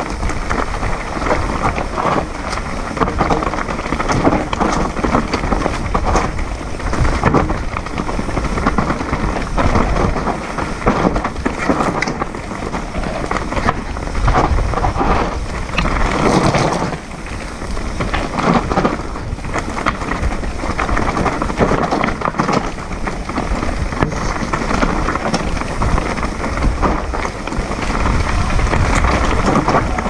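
Electric mountain bike descending a rough forest trail at speed: a continuous rumble of wind on the microphone, mixed with the tyres crunching over dirt and stones and many small knocks and rattles from the bike over bumps.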